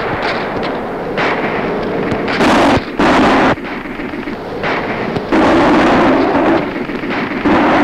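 A series of explosions over a continuous rumble and hiss: four loud blasts, two close together about two and a half seconds in, a longer one a little after five seconds and another near the end.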